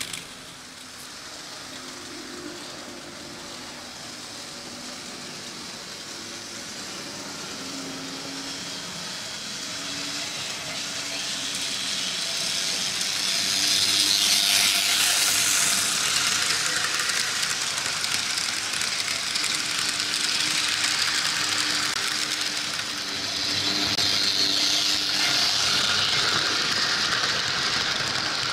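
Märklin H0 model trains running on tinplate M track: a steady rolling rattle of metal wheels on the metal rails with a faint electric-motor hum underneath. It swells to its loudest about halfway through as a twin-motor V 200 diesel model passes close by, eases briefly, then grows loud again near the end as a train of coaches rolls past.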